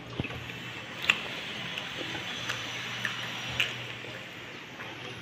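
Close-up eating sounds: chewing with sharp wet smacking clicks about every half second to a second, and rice being squished and mixed by hand on a steel plate.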